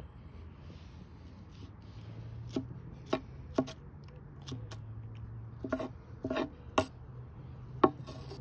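Sharp, irregular knocks and taps on a wooden board, about ten of them starting a couple of seconds in, some in quick pairs, as a squirrel carcass is handled on it for cleaning. A steady low hum runs underneath.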